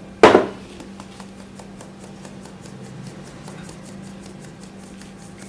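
A single sharp knock of kitchen ware, a cup or utensil against a bowl or counter, followed by faint, even ticking at about five a second.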